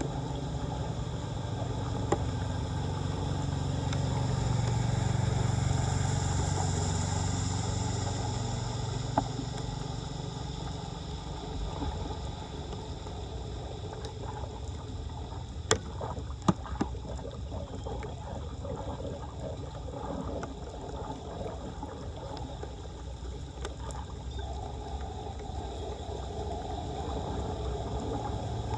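Floodwater flowing with a steady rushing, gurgling noise. A low rumble swells and fades in the first third, and a few sharp clicks come about halfway through.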